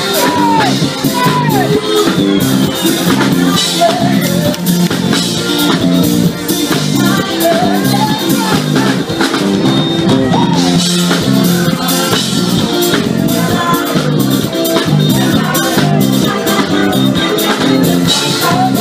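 Live band playing amplified dance music with a steady beat: drum kit, electric bass, electric guitar and keyboard.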